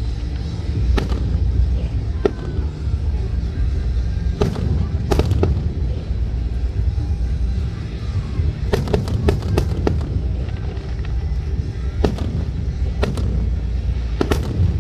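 Aerial fireworks going off in scattered sharp bangs, with a quick run of several bursts a little past the middle.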